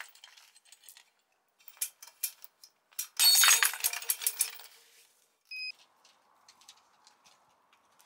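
A horizontally printed PETG tensile test specimen breaks under load about three seconds in, and the steel chain and hooks of the test rig jangle and ring for about a second and a half. A short electronic beep follows.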